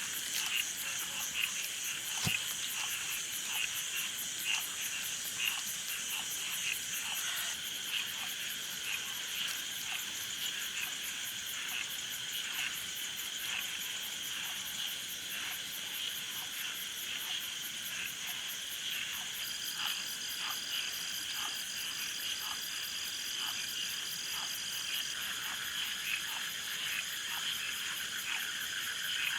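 A chorus of frogs calling over and over, about twice a second, with insects trilling steadily in the high register beneath them.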